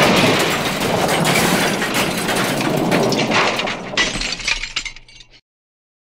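Crash sound effect: a dense clatter of breaking, shattering glass and debris. It thins into scattered clinks and dies away about five seconds in.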